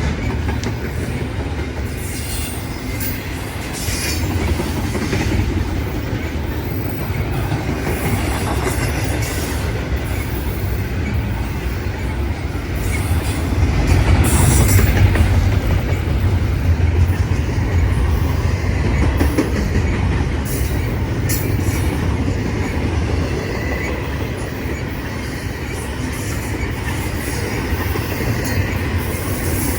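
A train rolling past steadily: a continuous low rumble of wheels on rail, with clicks, a faint squeal of wheels at times, and a swell in loudness about halfway through.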